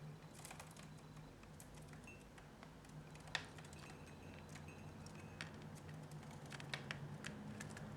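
Budgerigars pecking and scrabbling at a TV remote and tabletop: a scatter of light, irregular clicks and taps, the sharpest a little before halfway through, over a faint steady hum.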